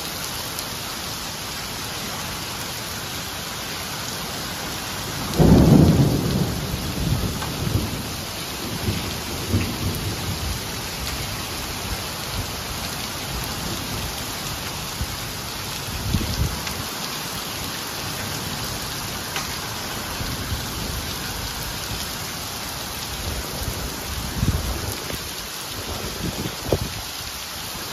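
Heavy rain mixed with hail pelting wet asphalt pavement, a steady hiss. About five seconds in comes a loud low clap of thunder that rumbles away over a few seconds, and weaker low rumbles follow later.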